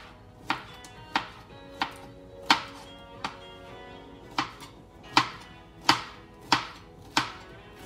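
Kitchen knife slicing fresh pineapple into small pieces, the blade knocking on the cutting board about a dozen times, roughly every two-thirds of a second, with a short pause about three seconds in.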